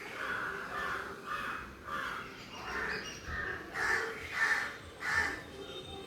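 Birds calling: a run of short calls, roughly one to two a second, with the loudest three coming about four to five seconds in.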